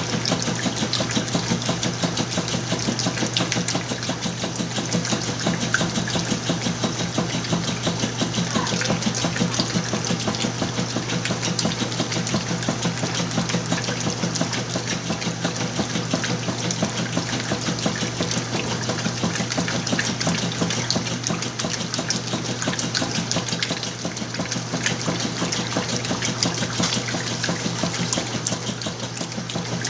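Whirlpool washing machine running its wash cycle with a heavy load of clothes: a steady motor hum under churning water.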